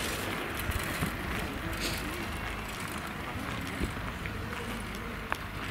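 Open-air showground ambience heard while walking: a steady low rumble with faint distant voices and a few light ticks.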